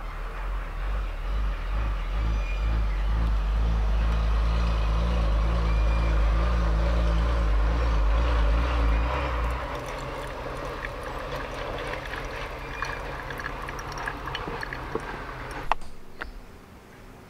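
A motor vehicle's engine rumbles low and loud, then fades away about ten seconds in. A sharp click follows near the end.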